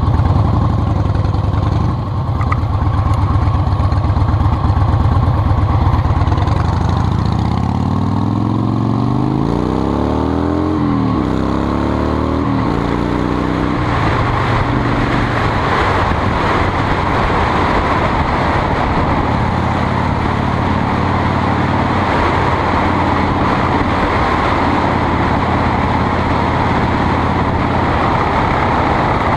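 A vehicle engine running steadily, then revving up with rising pitch about seven seconds in, dropping back once and rising again, then a steady drone of engine and road noise for the rest.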